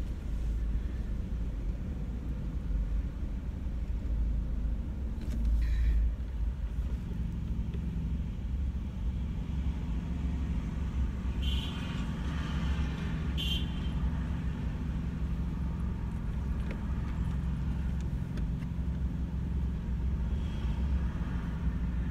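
Steady low rumble of a car heard from inside the cabin. There is a brief louder noise about six seconds in, and a few short higher sounds between about twelve and fourteen seconds in.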